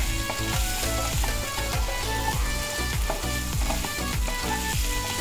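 Mixed vegetables sizzling in butter and oil in a wok, stirred with a wooden spatula, under background music with a steady beat.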